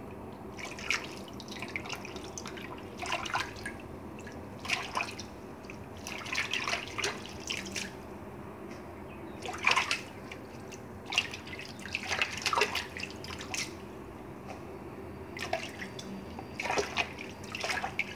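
Water splashing and dripping in a sink as hands swish and lift fresh watercress to wash it, in uneven bursts every second or two.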